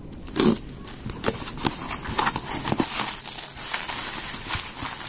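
A cardboard box pulled open by hand, with one louder rip or thump under a second in. Then plastic bubble wrap crinkles and rustles as the wrapped item is lifted out and handled.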